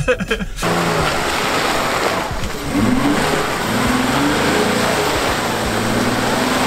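Jeep Wrangler Rubicon engine revving hard under load in low range as it charges a slippery mud hill, its pitch rising and falling, over a loud rushing noise.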